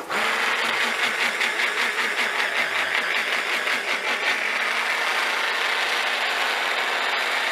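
Electric immersion blender running in a tall cup, blending hummus. It starts suddenly and runs unevenly for the first few seconds, then settles into a steady motor whine from about four seconds in.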